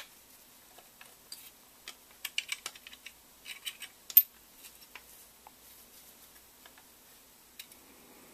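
Light, irregular clicks and taps of a rail handguard and its front mounting bracket being handled and slipped into place on an AK. The clicks bunch up between about two and four seconds in, with one sharper click just after four seconds.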